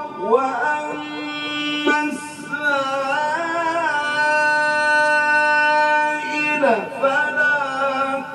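A man's voice in melodic Quranic recitation, drawing the word 'wa-ammā' out into a long ornamented note. The pitch rises into it, wavers through turns, holds steady for a couple of seconds, then glides down near the end.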